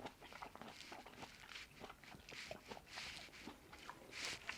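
Quiet, close-up chewing of a Shine Muscat grape: a run of soft, irregular mouth clicks.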